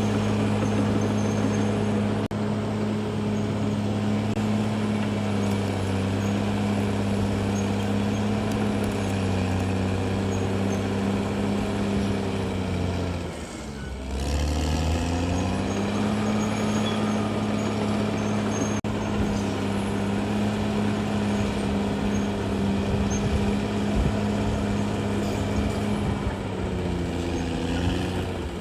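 Caterpillar D6R XL bulldozer's diesel engine running steadily. About halfway through its speed drops sharply and then climbs back, and it falls again near the end.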